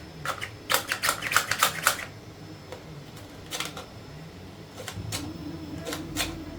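Hard plastic pieces of a 3D-printed magnet clicking and clacking as they are fitted and handled: a quick run of clicks in the first two seconds, then a few single clicks.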